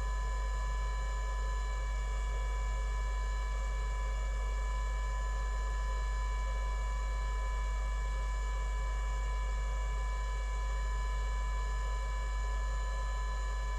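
Steady electrical mains hum with a thin high whine made of several constant tones, unchanging throughout.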